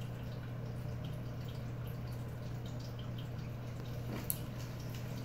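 Steady low hum with faint water trickling from a running home aquarium, and one light tap about four seconds in.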